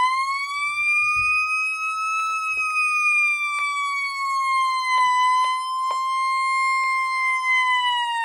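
Midland 74-102 weather radio sounding its siren alert: a continuous high-pitched electronic wail around 1 kHz that drifts slowly up and then sags back down, with faint clicks over it.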